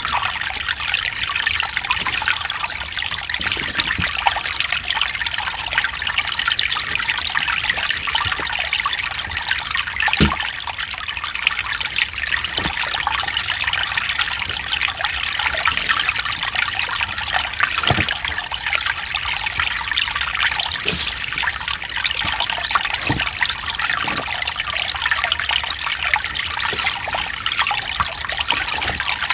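Mountain stream flowing: a steady rush and trickle of water, with a few short, deeper plops and gurgles now and then.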